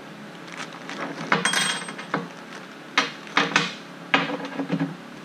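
Small steel parts being handled on a steel welding tabletop: a scattered run of clinks and knocks, several close together in the middle of the stretch.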